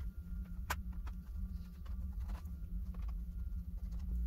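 Screwdriver clicking and tapping against the screws and bottom panel of a Dell Inspiron 15 7537 laptop as the panel screws are backed out, with one sharper click under a second in and a few lighter ones after, over a steady low hum.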